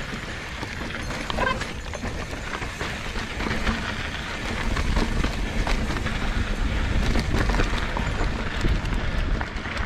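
Mountain bike rolling fast over a rough trail: tyres crunching over rock and gravel, with the chain and frame rattling in a constant stream of clicks and knocks over a low rumble. It gets louder from about halfway.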